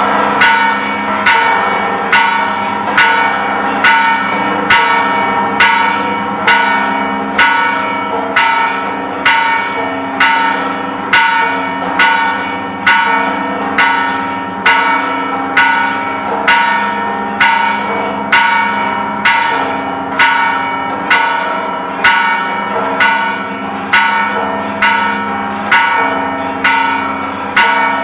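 The Campana de Dolores, the historic bronze bell on the Palacio Nacional balcony, rung by hand with its rope: struck evenly a little faster than once a second, each stroke ringing on into the next. This is the ceremonial tolling that follows the independence cry.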